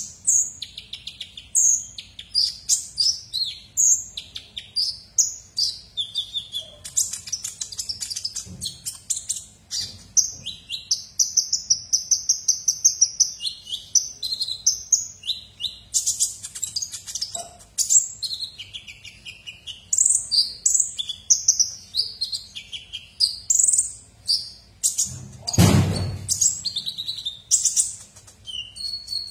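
Caged male purple-throated sunbird (kolibri ninja) singing nonstop: a fast, high-pitched stream of twittering notes and short trills, with one steadier trill held at one pitch about a third of the way in. A brief low thud near the end.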